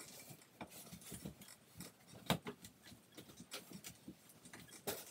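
Irregular light clicks, taps and rubbing from hands working with small parts, with two sharper knocks, one about two seconds in and one near the end.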